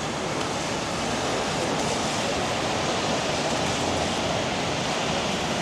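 Steady hiss of a rainy city street: traffic and rain on wet pavement, with no single sound standing out.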